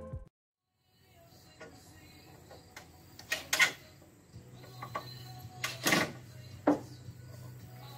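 A few short, sharp knocks and clicks, spaced out, over faint outdoor background, with a low steady hum coming in about halfway through.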